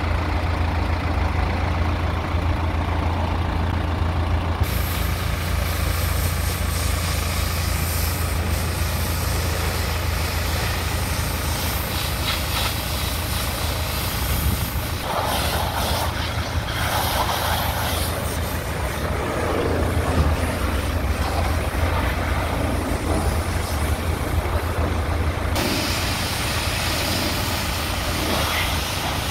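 New Holland T5060 tractor's diesel engine idling steadily, joined about five seconds in by the loud, even hiss of a pressure washer spraying water over the tractor.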